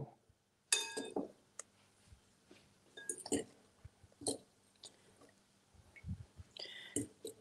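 Scattered light clinks and taps of a utensil against a glass mixing bowl while eggplant slices are tossed in a flour coating, a few of them ringing briefly.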